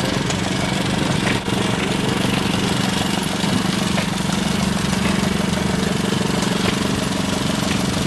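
Small engine running steadily with an even hum and a few faint clicks.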